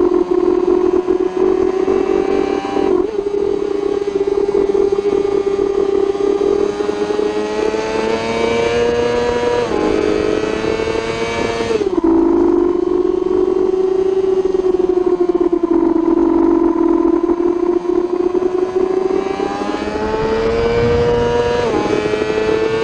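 A 1000 cc superbike engine heard from on board at racing speed, with rushing wind. The pitch climbs steadily through the revs and drops sharply at gear changes about 3, 10, 12 and 22 seconds in.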